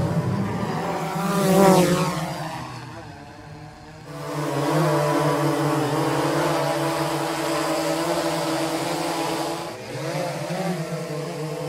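Quadcopter drone's propellers and motors buzzing in flight, with a louder pass and a bend in pitch a couple of seconds in, then a steady hover-like hum.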